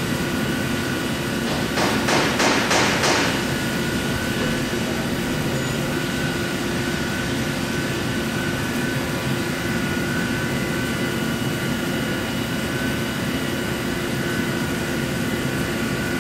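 Hass TM3 CNC mill running, a steady hum with a high whine from the spindle and machine. About two seconds in comes a quick burst of five or six sharp clatters.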